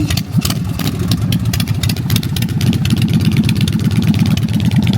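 Motorcycle engine running loudly with a rapid, steady exhaust beat.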